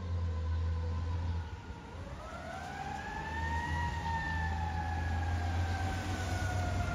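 Fire engine siren on a wail: its pitch sinks, climbs again from about two seconds in, then slowly falls, over a steady low rumble.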